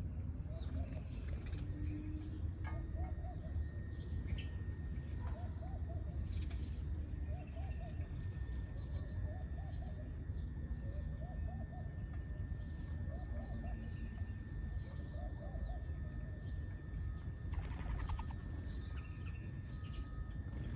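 Sparrows chirping in short, scattered high chirps, with a lower call repeating about every second and a half through most of the stretch. A thin steady high tone and a steady low rumble run underneath.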